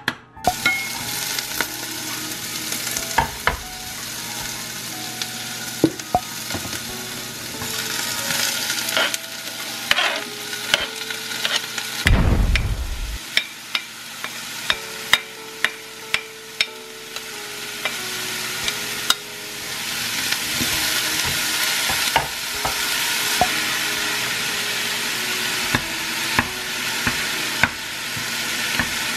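Onions and cauliflower rice sizzling as they stir-fry in a nonstick pot, with a spatula clicking and scraping against the pot again and again. There is a dull thump about twelve seconds in, and the sizzle gets louder in the last third as chicken breast goes in and is stirred through.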